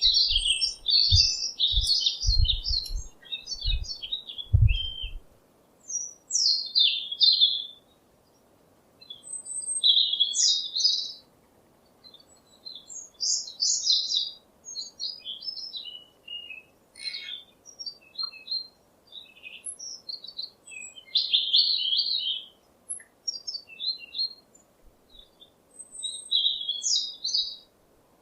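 Small birds chirping and twittering in quick high phrases with short pauses between them. A few low thumps come in the first few seconds.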